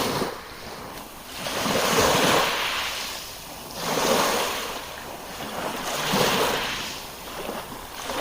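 Sea waves breaking on the shore, the surge swelling and falling back about every two seconds, with some wind on the microphone.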